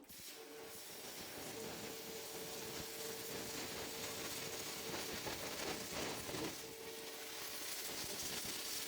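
CNC plasma cutter cutting, a steady hiss of the arc and air with a steady mid-pitched whine that holds from about a second and a half in.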